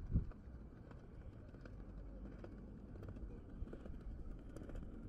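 Quiet outdoor city ambience: a steady low rumble of distant traffic with faint scattered ticks, and a brief low thump right at the start.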